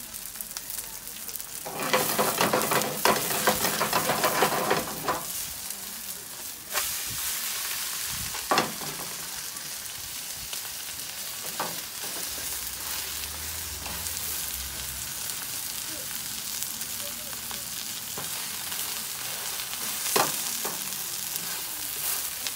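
Seafood pajeon frying in oil in a pan on a gas stove, with a steady sizzle that grows louder and crackles for about three seconds near the start. A metal spatula taps and scrapes against the pan a few times.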